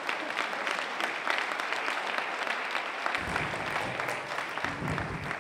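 Audience applauding steadily, with a low rumble joining in about three seconds in.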